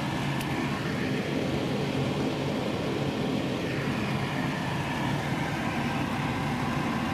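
Kitchen extractor fan above the hob running steadily: an even rushing noise with a low, constant hum.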